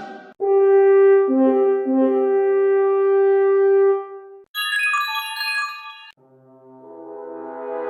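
iPhone ringtones and alert tones played one after another: a long held tone over lower notes, a short run of high notes about four and a half seconds in, then a chord that swells from about six seconds in.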